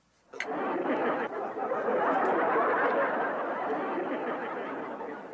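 Sitcom laugh track: studio audience laughter swells about half a second in, just after a short sharp tap, and slowly tails off near the end.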